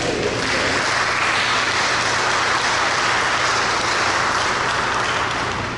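Congregation applauding: steady clapping of many hands that starts all at once and dies away near the end.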